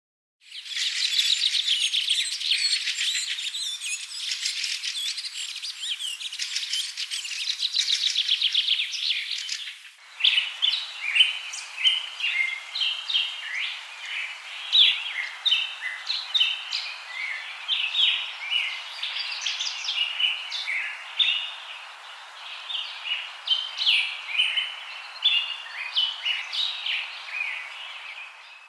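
Wild birds calling: a dense, rapid chattering for the first ten seconds, then an abrupt change to many short, separate chirping notes.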